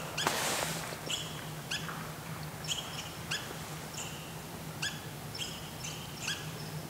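A brief clatter of rock falling off a shale face just after the start. Then short, high chirps repeat irregularly, about every half second.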